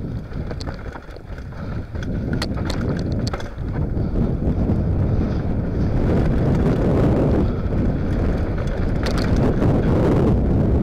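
Wind buffeting the action camera's microphone as a Lapierre Zesty mountain bike descends a dirt trail at speed, with a rumble of tyres on the dirt. Sharp clicks and rattles from the bike over bumps come mostly in the first few seconds, and the rush grows louder from about halfway.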